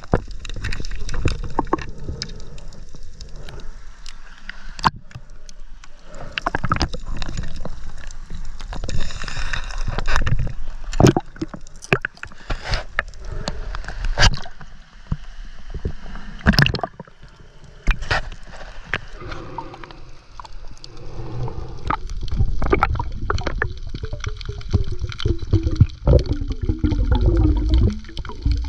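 Water sloshing and gurgling, with many sharp knocks and clicks throughout and a heavy low rumble.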